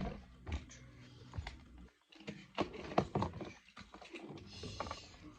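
Handling noises of plastic fidget toys being rummaged for and gathered up: a string of irregular clicks, knocks and clatters, busiest about halfway through.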